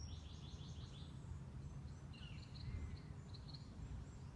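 Small birds chirping: a quick trill of rapidly repeated high notes at the start, then a run of short chirps a couple of seconds in, over a faint low steady rumble.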